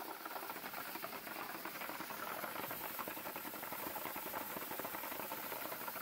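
KD-2000 mini rotary tumbler running, its turning drum making a steady, dense rattle as the polishing media and cast copper and bronze arrowheads tumble inside.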